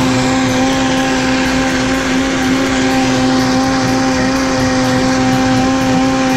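Vitamix blender motor running at a steady high speed, puréeing hot tomato soup until smooth: a loud, even whine whose pitch holds level, cutting off suddenly.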